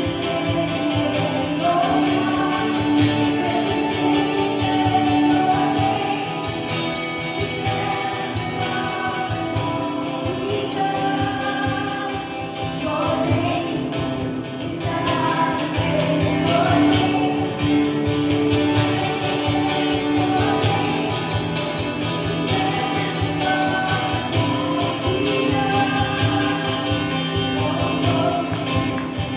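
Gospel worship music: voices singing with a choir over a band with a steady beat.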